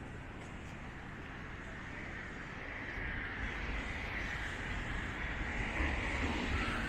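Road traffic: a steady hiss and rumble of vehicles, growing louder over the second half as a vehicle approaches.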